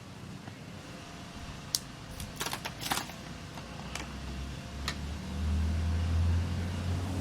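Sharp clicks and a quick cluster of light plastic knocks as a lawn mower's air filter and its cover are handled and fitted. Near the end a low steady hum comes up underneath.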